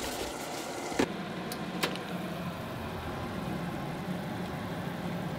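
Brief scrubbing noise, then a sharp click about a second in, after which a steady low mechanical hum runs on in the kitchen beside a steaming pot of vegetable soup, with two light clicks shortly after.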